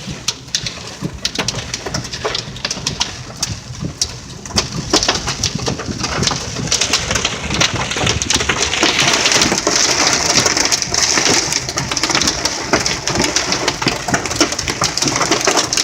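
Hail and rain pelting a car's roof and windshield, heard inside the cabin: a dense patter of sharp ticks over a steady hiss that grows louder about five seconds in and is heaviest around the middle.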